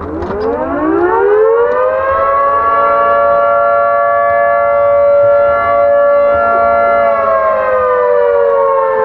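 Town outdoor warning siren winding up over the first two seconds, holding a steady wail, then starting to wind down about seven seconds in.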